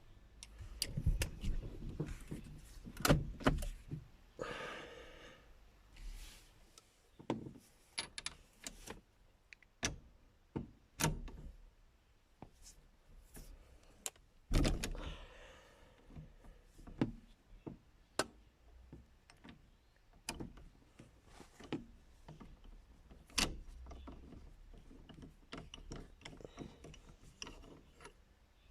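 Hand work on a car steering wheel: scattered clicks, taps and knocks of parts and tools being handled, irregularly spaced. There are two short rasping stretches, about four and a half seconds in and again around fifteen seconds.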